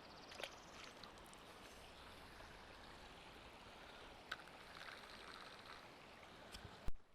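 Faint steady rush of creek water, with a few light clicks and a short knock near the end.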